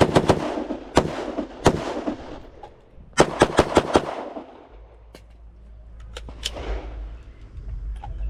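A rifle fires the last shots of a quick string, then two single rifle shots follow less than a second apart. After a short pause for the switch to the pistol, the pistol fires five quick shots about three seconds in. Every shot rings with echo, and fainter scattered shots follow.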